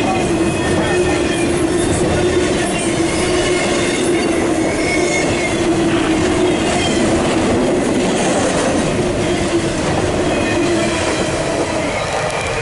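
Freight train cars rolling past close by, the wheels rumbling and clattering on the rails, with a steady low tone and faint high wheel squeal. The tone stops near the end.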